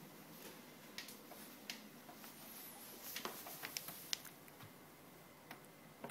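A few faint, scattered clicks and taps from small hands patting and fiddling with a TV stand, over quiet room tone.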